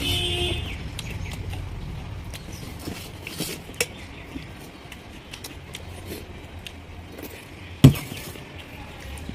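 Eating by hand: fingers mixing and picking up rice and curry on a plate, with small scattered clicks and chewing sounds and one sharp louder knock about eight seconds in. A low hum fades out over the first couple of seconds.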